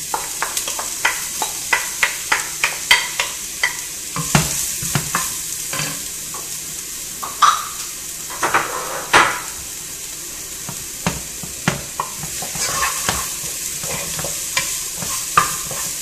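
Chopped onion and garlic frying in oil in a pot, a steady sizzle. A quick run of wooden-spoon taps over the first few seconds, then scattered knocks and stirring against the pot.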